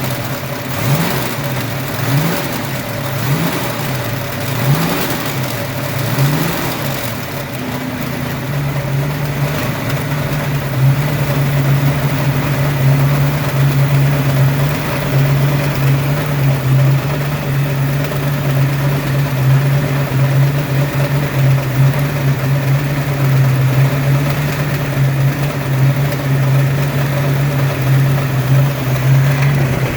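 Ford 302 (5.0-litre) small-block V8 blipped quickly about six times in the first seven seconds, then held at a steady speed. It carries a noise the owners can't place, which they suspect is piston slap, a broken wrist pin or the timing chain.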